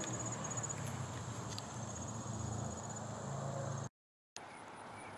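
Insects in the garden trilling: a thin, high, finely pulsed trill over a steady outdoor hiss. It drops out for a moment about four seconds in, then continues.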